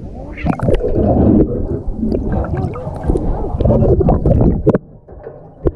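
Sea water sloshing and bubbling around a camera moving between the surface and just under it, broken by sharp knocks and clicks. It goes quieter after about five seconds, with one last sharp knock near the end.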